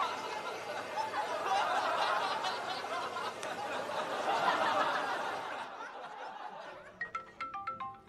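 Canned audience laughter from a sitcom laugh track, which cuts off abruptly about six seconds in. About a second later, light mallet-percussion music begins with a run of short, bright xylophone-like notes.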